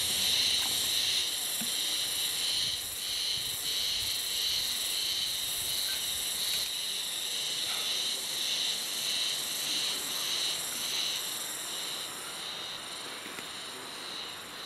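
A chorus of insects: a steady, high-pitched shrill that pulses slightly without a break.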